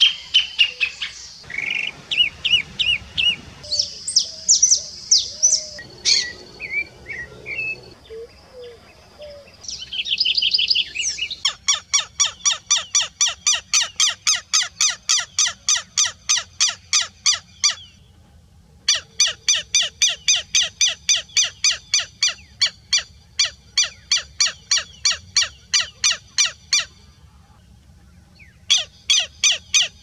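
For the first ten seconds or so, assorted bird chirps and short calls. Then a southern lapwing (quero-quero) calls in long runs of strident notes repeated about four times a second, with two short breaks.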